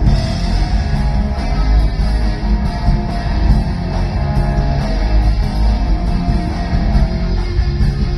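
Live rock band playing loud and steady with electric guitar out front over bass, with no singing yet, typical of a song's instrumental intro.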